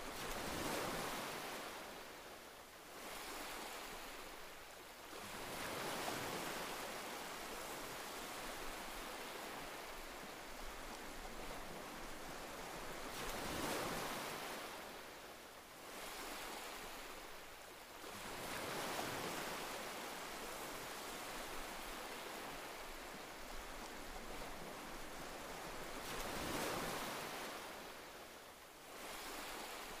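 Ocean surf: waves breaking and washing in, swelling and falling away in slow surges about every six or seven seconds.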